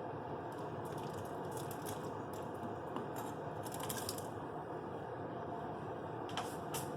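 Short scrapes and light clicks of a utensil pushing chunks of browned beef off a cutting board into a pot, over a steady background noise.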